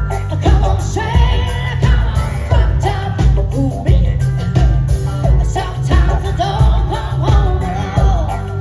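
Live band performance: a singer's voice over heavy bass and a steady drum beat.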